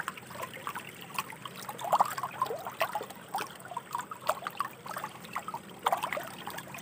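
Shallow river water trickling and gurgling over stones, with many small irregular plops and bubbling sounds, a little louder about two seconds in.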